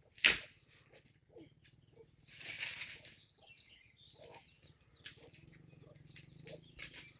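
One sharp, loud crack near the start, then a brief rustling crunch about two and a half seconds in and a few lighter clicks later, over a faint steady low hum.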